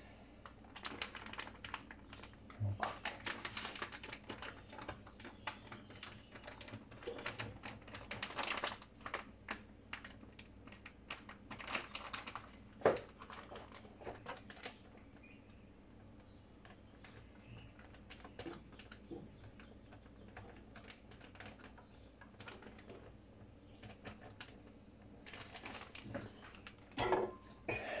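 Plastic food packaging crinkling and rustling as it is handled, in irregular bursts of sharp crackles with quieter stretches between, the sharpest cracks about 13 seconds in and near the end.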